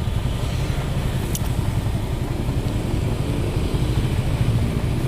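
Heavy truck's diesel engine running with a steady low rumble.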